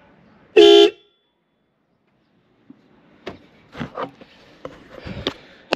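Newly fitted pair of Hella horns on a Ford Fiesta ST150, wired to sound together, giving one short, really loud blast as a test of the install.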